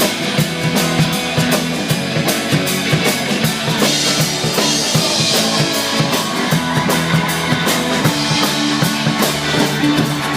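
Band music with no singing: a drum kit keeps a steady beat under the other instruments, as an instrumental break between sung verses.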